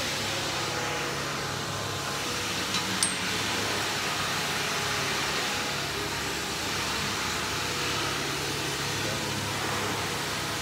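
Steady industrial machinery hum with a hiss over it, and a single short click about three seconds in.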